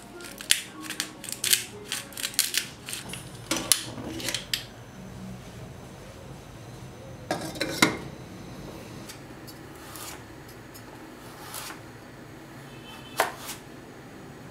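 Kitchen handling sounds: a quick run of light clinks and taps of utensils and dishes, a louder clatter about halfway through, and a single knife stroke on a plastic cutting board near the end.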